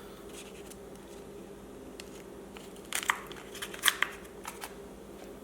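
Crinkling and crackling of a cornstarch packet being handled and emptied over shrimp, in two short clusters about three and four seconds in, over a low steady hum.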